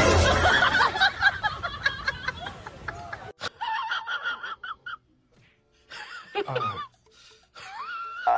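Loud laughter over background music for the first three seconds, then a quieter stretch of short wavy pitched sounds with gaps.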